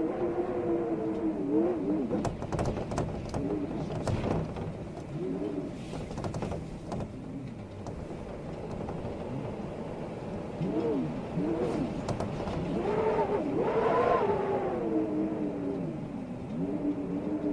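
Storm wind howling in gusts, its pitch bending up and down and peaking in a louder gust about fourteen seconds in, over rustling leaves with short crackles and rattles.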